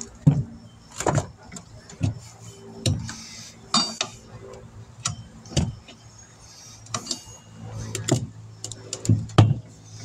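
A steel tire iron clinking and knocking against a motorcycle wheel's rim as the tire bead is levered over it by hand, a sharp knock about once a second. A steady low hum runs underneath.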